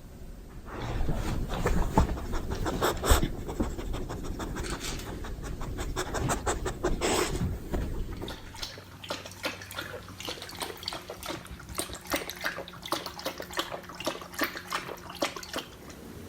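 Beagle panting in quick, rough breaths, louder for the first half and then lighter and clickier.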